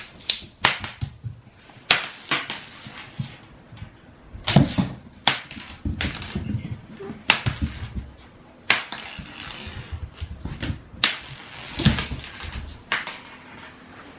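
Irregular sharp knocks and clatters, about a dozen, some with dull thuds, from a cat playing and batting and bumping against objects.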